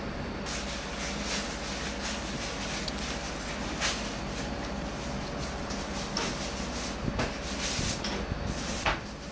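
Steady background hum with scattered light rubbing and clicking sounds. The loudest come about four seconds in and near the end.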